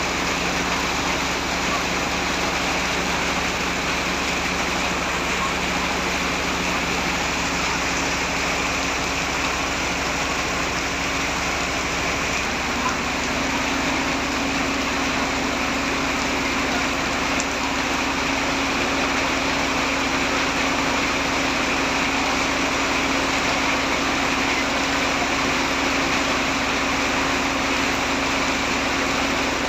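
Heavy rain falling steadily, with a steady engine hum like an idling vehicle underneath; the hum's pitch shifts a little about twelve seconds in.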